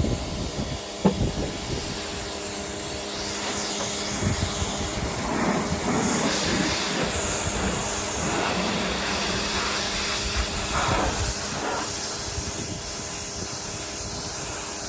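Pressure washer spraying through a narrow 15-degree tip against a truck's body, blasting off built-up grime and tree sap: a steady hiss of water spray over the washer's pump hum, with a brief knock about a second in.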